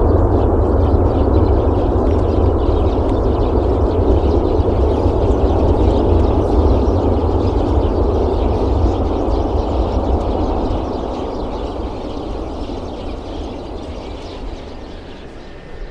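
Jet engine noise from a Boeing 767-300 on the runway: a loud, steady rumble with some crackle on top, fading away over the last five seconds as the aircraft moves off.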